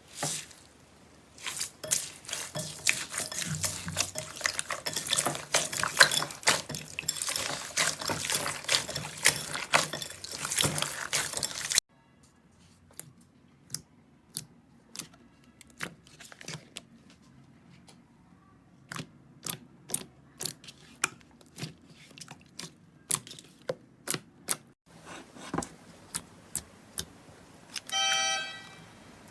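Slime being squeezed and pressed by hand: a dense crackle of clicks and pops, then, after a sudden cut, scattered single pops. A short pitched sound comes near the end.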